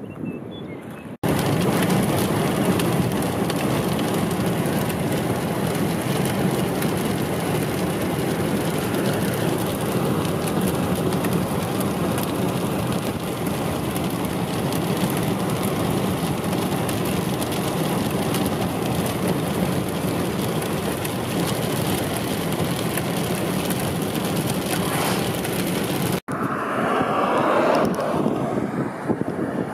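Storm wind rushing over the microphone in a loud, steady roar. It starts abruptly about a second in, cuts off sharply near the end, and lighter gusting wind follows.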